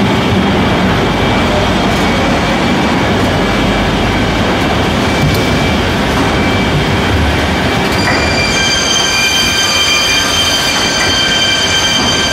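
Gypsum board PVC laminating machine running: steady loud machine noise with several high, steady whining tones that grow stronger about eight seconds in.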